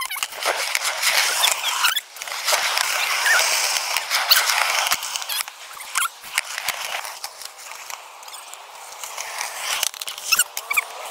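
Skateboard wheels rolling and scraping on concrete, with several sharp clacks of a board striking the ground.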